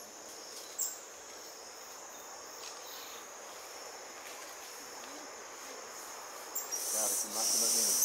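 Forest insects drone steadily at a high pitch. Near the end a louder high buzzing swells in, alongside a few short, low wavering calls. A sharp click sounds just under a second in.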